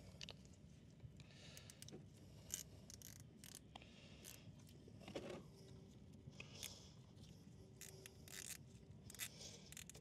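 Faint, scattered clicks and scrapes of hands and tools working at a motorcycle's rubber coolant hose and its clamp to get it off.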